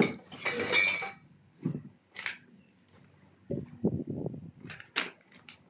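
Plastic packaging wrap and a paper manual rustling and crinkling, loudest in the first second, then in short scattered bursts and small clicks.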